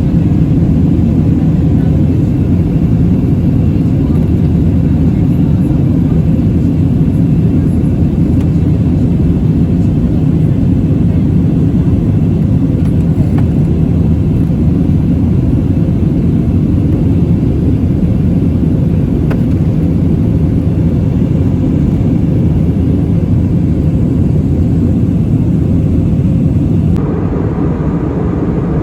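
Wizz Air Airbus A320-family airliner heard from inside the cabin: a loud, steady rumble of jet engines and rushing air as it takes off and climbs. The rumble eases slightly near the end.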